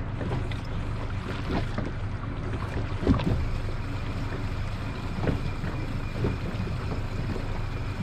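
Water lapping and slapping irregularly against the hull of a small fishing boat adrift at sea, with wind on the microphone and a sharper knock or splash about three seconds in.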